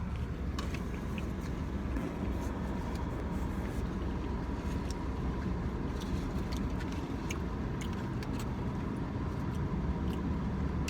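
Steady low rumble of a car cabin, the engine idling or the ventilation running, with a faint steady tone and scattered light clicks and taps.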